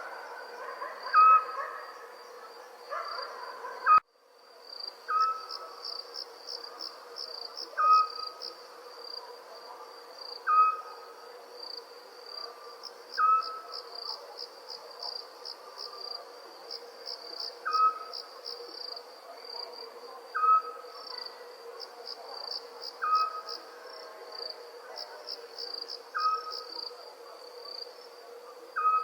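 Night ambience of crickets chirping in a steady high trill, with a short single-note call repeated about every two and a half seconds. Everything cuts out abruptly about four seconds in and fades back.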